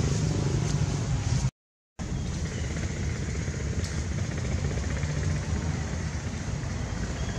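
Steady low rumble with a hiss above it, broken by a half-second gap of silence about one and a half seconds in.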